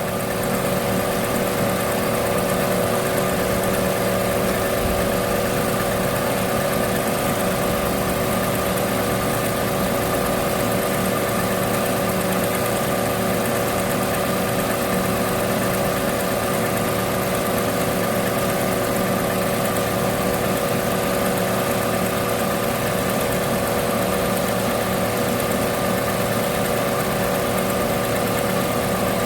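Car engine idling steadily with the air conditioning running: an unchanging hum with several held tones under a steady hiss.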